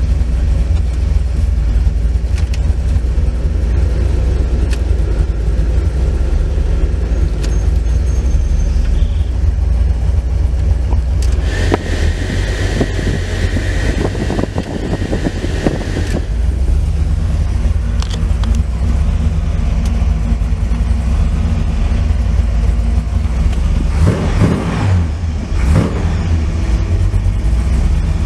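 1963 Chrysler New Yorker's V8 engine idling, a steady low rumble heard from inside the cabin. Midway, a hiss with a steady high tone joins it for about four seconds.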